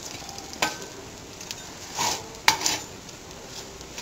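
Metal spatula clattering and scraping on a flat iron griddle as pieces of stuffed phulka are flipped: three clatters, the sharpest about two and a half seconds in. Underneath is a faint sizzle of oil on the hot griddle.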